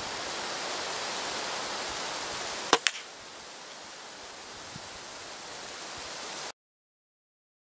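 A single airgun shot, a sharp crack followed a split second later by the pellet smacking into a small red plastic cap target on a wooden post and knocking it off. Steady outdoor hiss fills the rest, and the sound cuts off about a second before the end.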